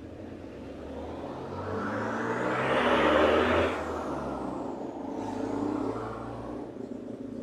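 A motor vehicle passing by, getting louder to a peak about three seconds in and then fading, with a faint high whine that falls in pitch as it goes.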